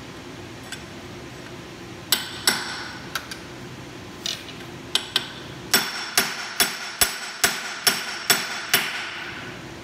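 Hammer striking a steel drift to drive a rusted-in brake pin out of an Allis Chalmers C tractor's axle casting, with a ringing metal-on-metal clang. A few scattered blows come first, then a steady run of about eight strikes, a little over two a second, in the second half. The pin is really stuck.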